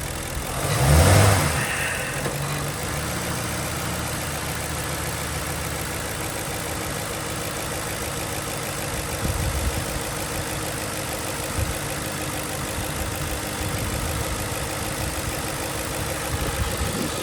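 Ford Crown Victoria 4.6-litre V8 running at a steady idle, with a brief louder surge about a second in.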